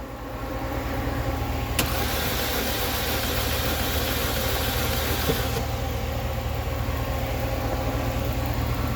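Chevy Cruze engine being cranked over by the starter for a compression test, turning steadily without firing, with a louder hissing stretch from about two to five and a half seconds in.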